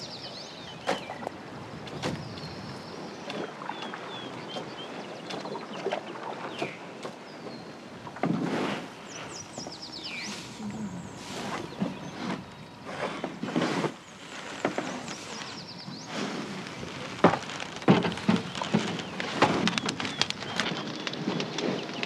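Wild rice stalks rustling and swishing, with irregular light knocks and a patter like grain falling, as rice is harvested from a canoe. Birds give short chirps now and then. The knocking grows busier and louder near the end.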